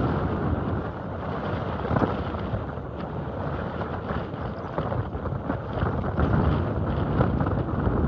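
Wind buffeting the microphone: a rough, gusting rumble that rises and falls in strength.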